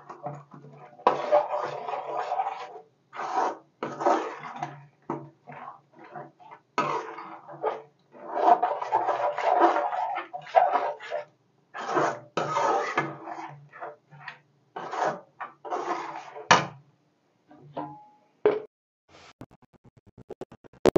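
Metal spatula scraping and slapping through thick masala gravy in a metal kadai, in irregular stirring strokes that stop about 17 seconds in, as the gravy is cooked down to thicken. A quick run of faint clicks comes near the end.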